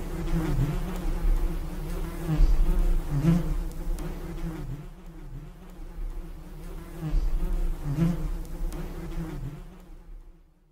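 Honeybees buzzing around a hive, with single bees flying close past now and then so the buzz swells and bends down and up in pitch. The buzzing fades out near the end.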